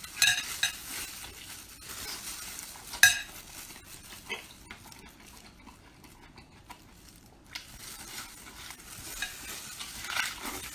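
Close-miked mouth sounds of a person eating braised pork large intestine: wet slurps and sucking as a strip is drawn into the mouth, with sharp wet smacks near the start and about three seconds in, then quieter chewing.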